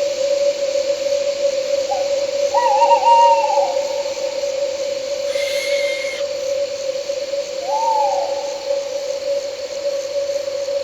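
An owl hooting, two short arching calls about two seconds in and again near eight seconds, over a continuous steady hum and a faint high chirring of crickets.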